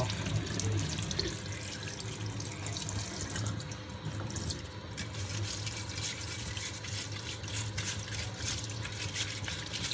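Kitchen tap running onto a washing machine drain filter held in the stream, with water splashing into a stainless steel sink. In the second half a plastic dish brush scrubs the filter under the water.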